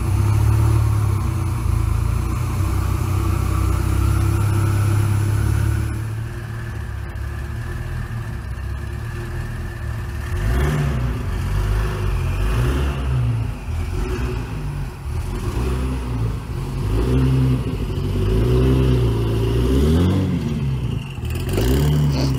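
1992 Venturi 400 Trophy's twin-turbocharged V6 running loudly and evenly, settling quieter about six seconds in, then revved up and down over and over as the car pulls away.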